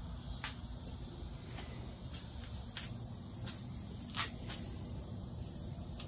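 Steady high-pitched insect chorus droning on one note, over a low rumble, with a few light clicks and taps scattered through.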